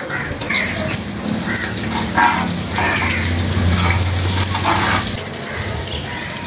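Whole spices sizzling in hot oil in a clay pot, a steady hiss that grows louder as they are stirred, with short scrapes of the spoon against the pot; the hiss drops off abruptly about five seconds in.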